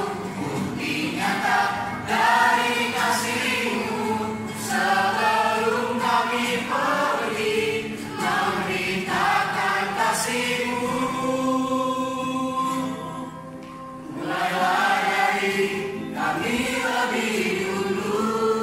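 A mixed vocal group of men's and women's voices singing an Indonesian church hymn in harmony. Near two-thirds through they hold a long chord, ease off briefly, then carry on singing.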